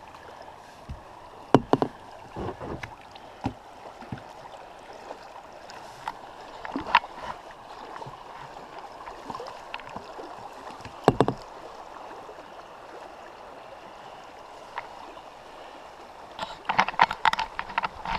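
Kayak being paddled down a river: a steady rush of moving water, with occasional sharp paddle knocks and splashes, and a quick run of splashes near the end.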